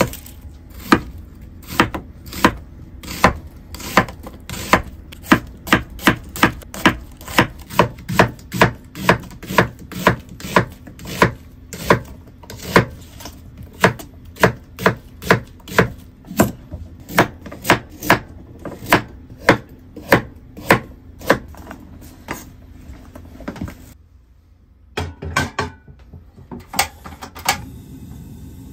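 Kitchen knife slicing an onion on a wooden cutting board: regular chops of the blade through the onion onto the board, about two a second. The chopping stops a few seconds before the end, and a few scattered knocks follow.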